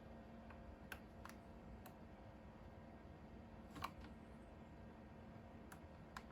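Faint, scattered light clicks and taps, about seven over six seconds with the loudest a little past halfway: metal multimeter probe tips touching the cell terminals of an e-bike battery pack during a cell balance check.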